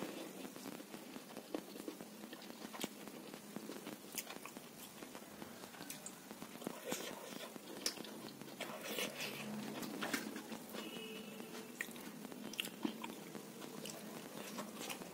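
A person chewing and biting a rice and chana dal pancake close to the microphone, with scattered small clicks and crunches.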